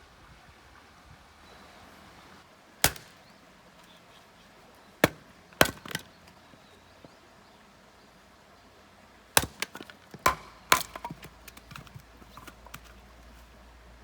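Firewood being chopped and split by hand: about seven sharp chopping strikes into wood, spaced irregularly, with a cluster of blows late on followed by light clattering of split pieces.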